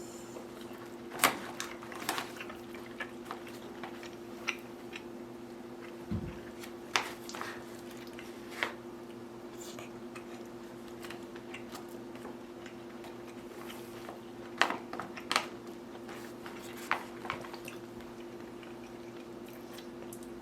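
Eating from a pouch meal: a spoon clicks and scrapes now and then, with some chewing, over a steady low hum.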